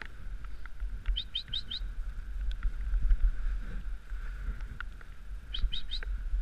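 Dog sled running along a snowy trail: a steady low rumble with scattered knocks from the sled. A small bird gives a quick run of four high chirps about a second in, and again near the end.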